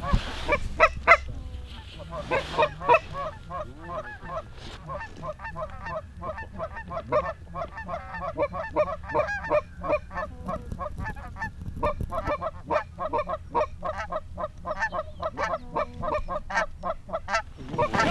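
Canada goose honks and clucks, short calls repeated several times a second almost without a break, thinning briefly about four seconds in.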